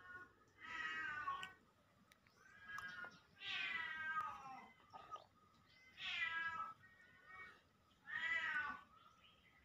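Siamese cat meowing repeatedly: four long, loud meows about two to three seconds apart, each falling in pitch at its end, with a couple of softer, shorter meows between them.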